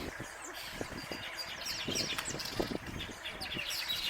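Small birds chirping and twittering in quick, overlapping calls, with a few low knocks and thuds in between.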